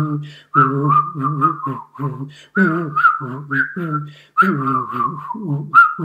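A man whistling and humming at the same time: a wavering whistled tune over a lower hummed line, in phrases of short notes broken by brief pauses.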